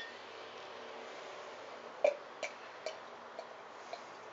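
Beer being poured from a glass bottle into a tilted glass: a light clink at the start, then a soft stream of liquid with five short gurgles about half a second apart from about two seconds in.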